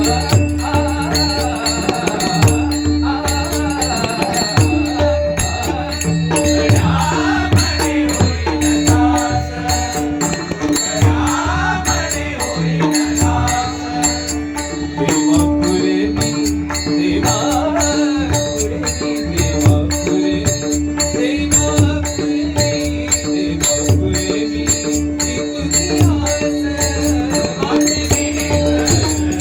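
Marathi bhajan music: a steady held drone with a gliding melody line over it, kept in rhythm by hand percussion and jingling rattles.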